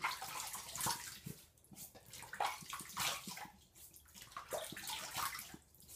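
Water splashing and sloshing in a bathroom sink in irregular bursts with short gaps and a few light taps, as a safety razor is rinsed mid-shave.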